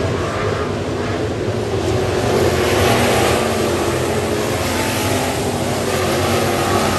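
A pack of dirt-track stock cars running at speed with their engines at full throttle. The engine noise swells about two and a half seconds in as the pack passes close, then carries on steadily.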